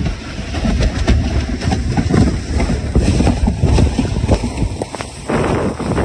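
Plastic kayak hull sliding fast down a snowy, grassy hill: a loud continuous rumbling scrape with many rattling knocks as it runs over dry grass and bumps, and a burst of hissing about five seconds in.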